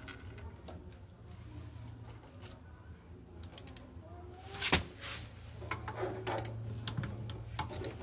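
Hand tools clicking and knocking against the plastic and metal parts of an opened front-loading washing machine, with the sharpest knock a little past halfway, over a steady low hum.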